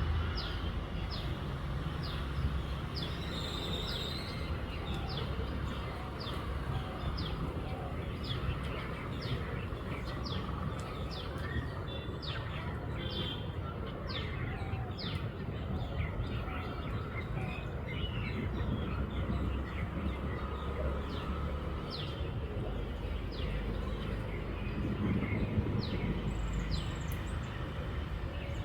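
Small birds chirping repeatedly, short quick notes one after another, over a steady low rumble.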